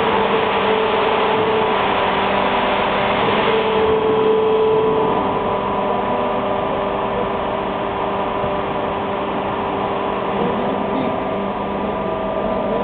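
AAC block cutting machine running as it carries the green aerated-concrete cake through its cutting wires: a steady mechanical drone with several held tones, a little quieter after about four seconds.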